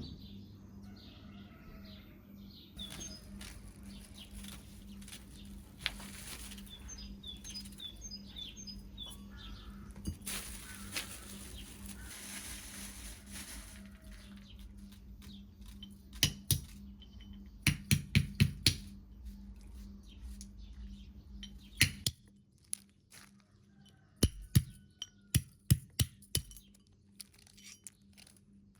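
Birds chirping in the background while dishes and glassware are handled, with a series of sharp clinks and knocks, several in quick succession, in the second half. A low steady hum stops about two-thirds of the way through.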